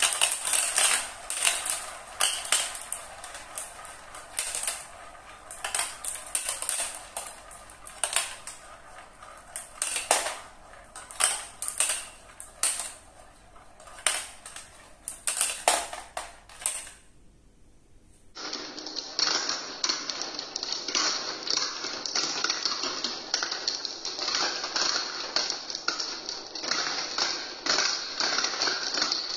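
Glass marbles rolling and clacking through a plastic building-block marble run, swirling around the plastic funnels and knocking against each other in the tracks. The clatter thins to a few scattered clicks and almost stops about two-thirds of the way through. Then a fresh batch sets off a dense, continuous rattle.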